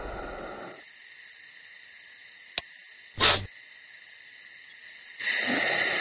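Sound design for an animated night scene. A low rumble fades out in the first second, leaving a faint, steady, high insect-like chirring. A sharp click comes about two and a half seconds in and a brief high-pitched squeak just after, then a louder night ambience swells in near the end.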